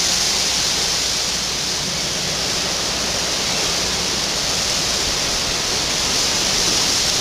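Steady, even hiss, strongest in the high range, with no speech.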